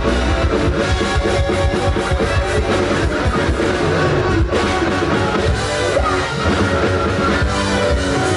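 A band playing rock music, with electric guitar over a drum kit.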